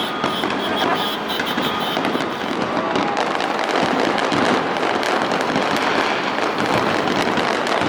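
Fireworks display: a dense, continuous barrage of bursts and crackles.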